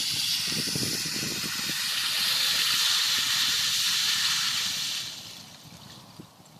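The last of the drifting ice moving off the shore, giving a steady hiss with faint crackling. It swells in the middle and fades away about five seconds in.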